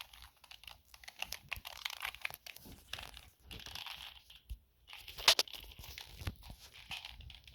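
Plastic 2x2 Rubik's cube being turned over and over, its layers clicking and rasping in quick successive turns, with a sharper click about five seconds in.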